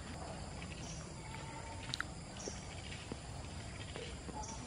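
Quiet outdoor forest ambience: a steady low rumble with short high chirps every second or two and a few faint clicks.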